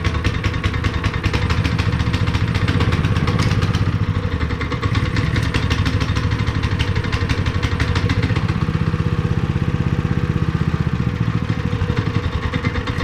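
Honda GX160 single-cylinder four-stroke engine running steadily and warming up, freshly started after sitting unrun for years.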